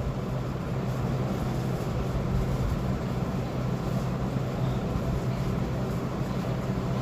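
Hot air gun blowing steadily, with a low hum, as it heats the ignition driver chip on an ECU circuit board to desolder it.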